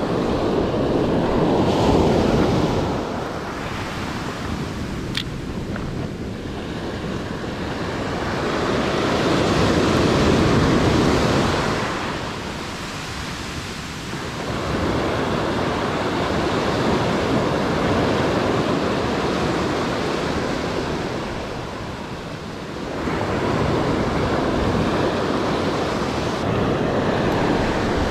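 Ocean surf breaking and washing up a sandy beach: a continuous rush of water that swells and fades in slow surges several seconds apart.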